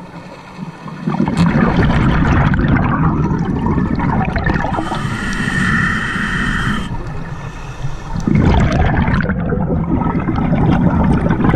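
Scuba diver breathing through a regulator underwater, heard from the camera on the diver. There are two long rushes of exhaled bubbles, the first starting about a second in and the second about eight seconds in, with a quieter pause between them.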